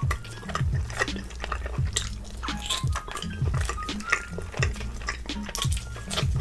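Close-miked wet chewing and lip-smacking with many sharp mouth clicks as large pieces of grilled chicken are stuffed in and eaten, over quiet background music.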